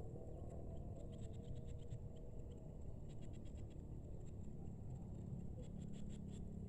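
Low wind rumble on the microphone, with three short runs of rapid faint ticking from a fishing reel being cranked to retrieve a lure.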